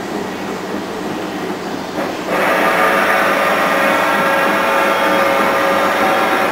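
Colchester CNC4000 lathe running with a steady mechanical noise; about two seconds in, a louder steady whine with several pitched tones sets in as the carriage makes a rapid traverse move, stopping abruptly at the end.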